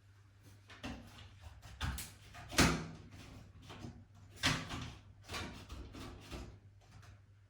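A series of about six hard knocks and clunks, irregularly spaced, the loudest about two and a half seconds in.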